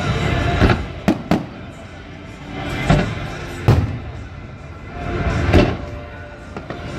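Aerial fireworks shells bursting: about six sharp, irregularly spaced bangs, with music playing in the background.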